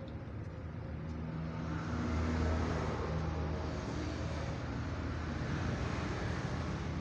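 A vehicle engine running with a steady low hum, growing louder over the first couple of seconds and then holding steady.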